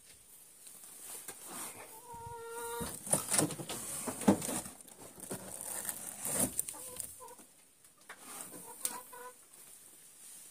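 A hen calling: one held, squawking note about two seconds in, then short clucks near the end. In between come knocks and rustling as eggs are lifted out of a nest box into a wire basket, the loudest knock about four seconds in.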